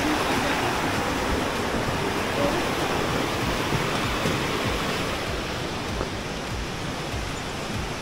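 Steady rush of a stream cascading over small waterfalls, growing slightly quieter near the end.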